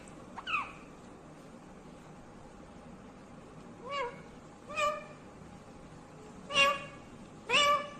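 Indian ringneck parakeet giving five short calls, each rising and falling quickly in pitch: one a moment in, then a long pause, then four more coming closer together toward the end.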